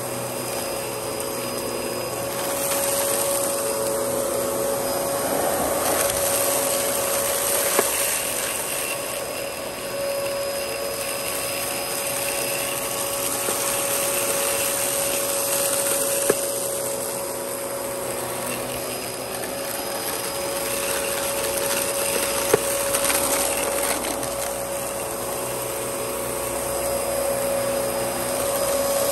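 Dyson DC14 upright vacuum cleaner running over carpet, a steady motor whine that swells and eases every few seconds, with three short sharp ticks.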